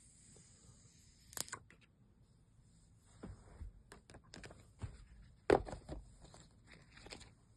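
Hands handling a smartphone and its packaging: scattered clicks, taps and rustles of cardboard and plastic, with a sharper knock about five and a half seconds in.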